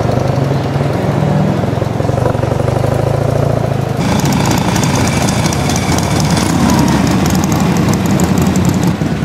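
A motorcycle engine running steadily under the rider, then an abrupt change about four seconds in to several motorcycle engines running together with street traffic.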